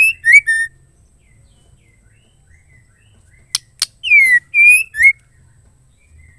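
Female white-rumped shama calling: the tail of a whistled phrase at the start, then after a pause two sharp clicks and a short phrase of clear whistles, one falling, one held, then a short rising note.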